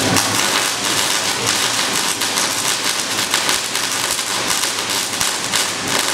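Flash butt welding machine flashing: a dense, steady crackle as the current arcs across the rod ends and throws out a spray of molten-metal sparks.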